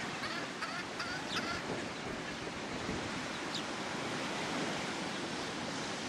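Ocean surf rushing steadily, with some wind noise. A few short high chirps sound within the first second and a half, and once more about three and a half seconds in.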